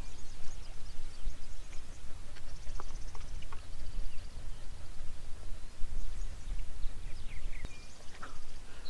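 Outdoor pond-side ambience: an uneven low rumble with scattered faint bird chirps, and a brief rapid high trill about two and a half seconds in and again near the end.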